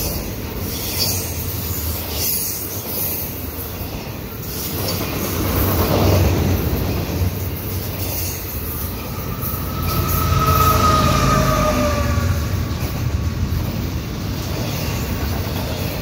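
Loaded double-stack container well cars of a fast freight train rolling past, a steady rumble and clatter of steel wheels on the rails. From about nine to twelve seconds in, a thin high wheel squeal rises over it as the cars take the tight curve.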